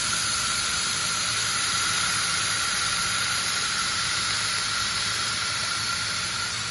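Steady hiss of an automatic 2000 W laser welder running a wire-fed weld pass along a stainless steel seam, with a steady high tone over the hiss.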